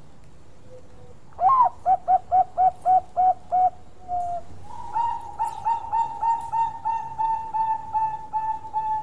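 Zebra dove (perkutut) singing its staccato cooing song. A rising first note comes about a second and a half in, then a quick run of short coos at about four a second and a drawn-out note. From about halfway through, a longer run of short, ringing coos follows at about three to four a second.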